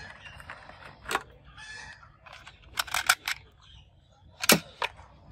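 Sharp plastic clicks and clacks from plastic toys being handled, including a toy revolver: a single click about a second in, a quick run of clicks in the middle, and two more near the end.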